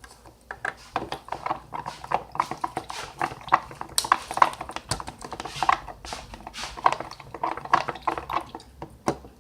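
Mixing stick stirring glue, water and dye in a cup, clicking and knocking against the sides in quick, irregular taps.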